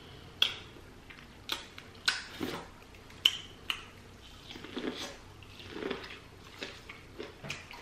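Close-up eating sounds of biting into and chewing boiled corn on the cob: a string of short, sharp crisp bites and clicks with softer wet chewing between them.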